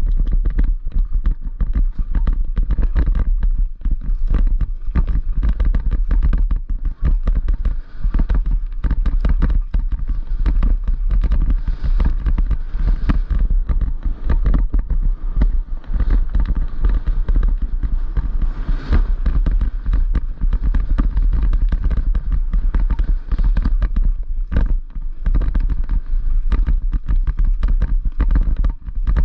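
Downhill mountain bike clattering over roots and rocks at speed, heard from a helmet camera: dense rapid knocks and rattles over a constant low wind rumble on the microphone.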